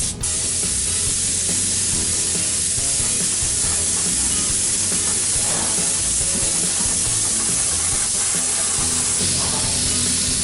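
Paint spray gun spraying in one long, steady hiss that starts abruptly, with background music underneath.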